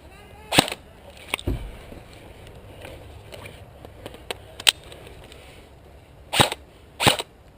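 Airsoft guns firing single shots at irregular intervals: one loud shot just after the start, a couple of fainter sharp cracks in the middle, and two louder shots under a second apart near the end.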